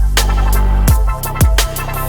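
Electronic background music with a heavy sustained bass and sharp drum hits on a steady beat.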